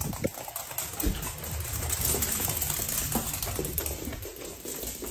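A small puppy's claws clicking and pattering on a hard wooden floor as it runs, with a rustling noise swelling in the middle.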